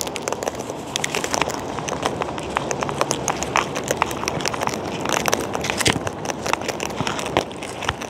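Sulphur-crested cockatoos feeding on seed: a dense, irregular run of small clicks and cracks from their beaks picking and husking the seed.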